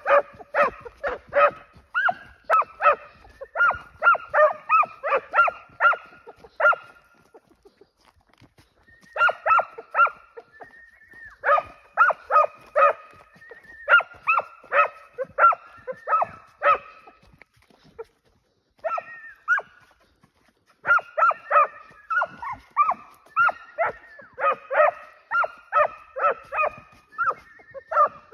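A dog barking in rapid runs of several barks, about three a second, with short pauses between the runs.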